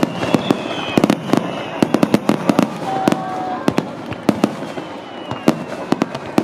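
Fireworks finale: aerial shells bursting in a rapid, irregular barrage of sharp bangs, several a second, echoing.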